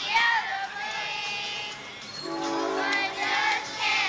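A group of children singing a song together outdoors, with a few sustained held notes.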